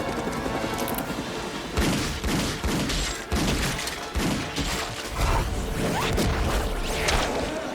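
Film sound effects of heavy automatic gunfire: dense volleys of shots with crashing impacts, starting about two seconds in and coming in waves to the end.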